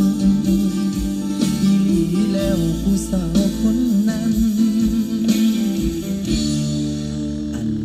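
A song played through a car audio system with the car's doors open: plucked guitar and bass over regular drum hits.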